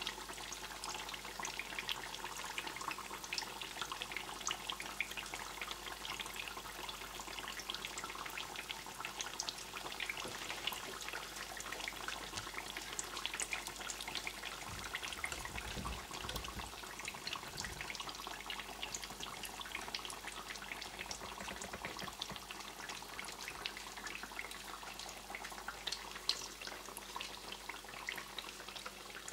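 Breaded zucchini slices frying in hot oil in a pan: a steady sizzle with dense, fine crackling.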